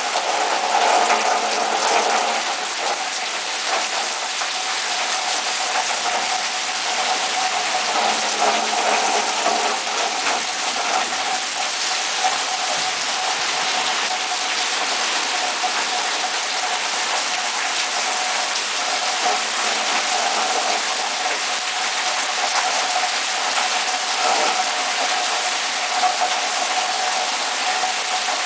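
Heavy thunderstorm rain pouring down steadily, a dense even hiss of a downpour, with a steady hum running underneath.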